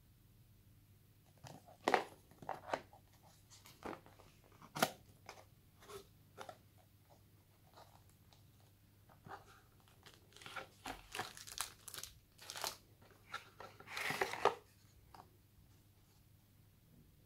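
Cardboard phone box and its packaging being handled: flaps and a cardboard insert scraping and tapping, with crinkling of plastic wrap, as scattered short sounds that begin about a second and a half in. The longest rustle comes near the end.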